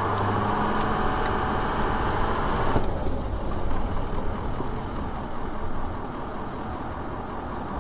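Steady motor-vehicle engine and road noise with a low hum, which eases somewhat about three seconds in.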